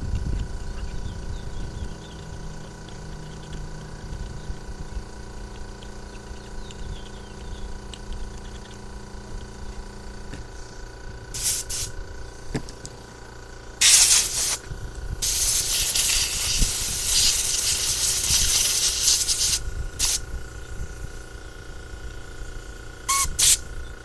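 Hissing blasts from a spray nozzle held against a small carburetor part to clean it out. There are two short blasts about halfway through, then one long blast of about four seconds, then a few quick puffs near the end.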